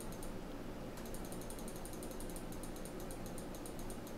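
Fast runs of faint clicks from a computer mouse, several a second, with short gaps between runs, over a low steady hum.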